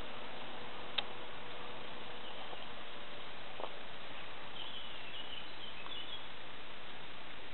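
Steady background hiss with a sharp click about a second in, and faint high chirps in the second half.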